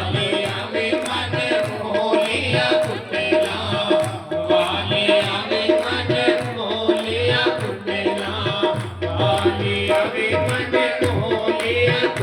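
Devotional bhajan music: a tabla-style hand-drum rhythm played steadily under sustained melodic notes.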